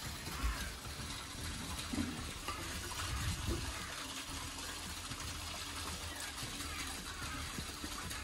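Steady rush of running water, with a few low knocks in the first few seconds.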